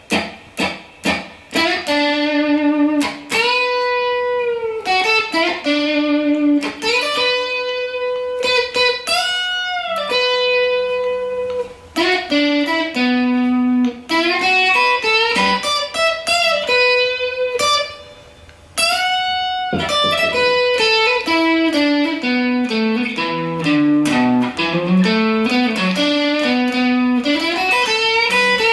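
Background guitar music: a melodic line of plucked single notes, with a short break about two-thirds of the way through.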